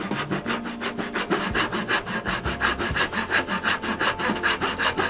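Hand saw cutting pallet wood in quick, even strokes, about four a second, sawing a slot into the frame.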